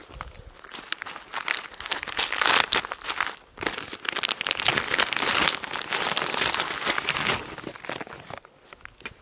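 A thin plastic bag crinkling and rustling as hands open and handle it, with a short pause about three and a half seconds in.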